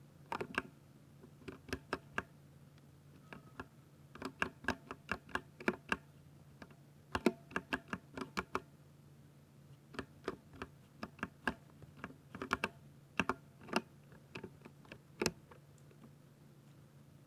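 Typing on a 60% mechanical keyboard with silver switches: quick keystroke clicks in uneven bursts with short pauses, stopping a couple of seconds before the end. A steady low hum runs underneath.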